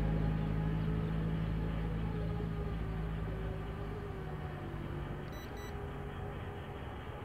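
Steady motor hum with several pitched tones, fading gradually as it moves away. Two short high beeps about five seconds in.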